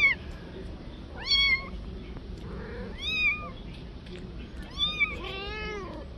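A tabby kitten and its mother cat meowing: about five short, high-pitched meows roughly every one and a half seconds, and a longer, lower meow a little after five seconds in.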